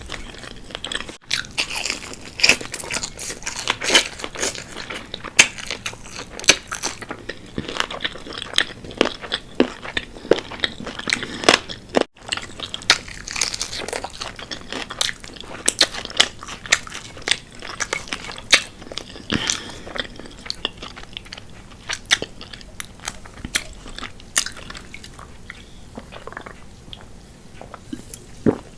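Close-miked biting and chewing of crispy fried chicken wings: a steady run of irregular sharp crunches and crackles as the breading breaks up in the mouth. The sound drops out to silence for an instant twice, about a second in and around twelve seconds.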